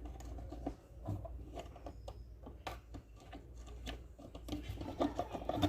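Scattered light clicks and scraping of plastic parts being handled as the blender's switch is fitted into its groove in the housing, over a low steady hum.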